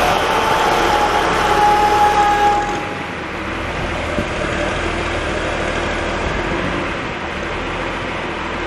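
John Deere 710 backhoe's diesel engine running, with a steady high whine over it for the first three seconds that then stops and leaves the engine running more quietly.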